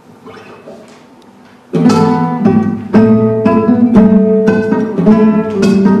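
Guitar played by plucking, a run of single notes about two a second. After a faint first second and a half, the playing starts suddenly with a loud note.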